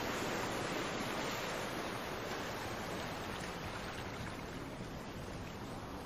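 Ocean waves: a steady wash of surf noise, slowly getting quieter.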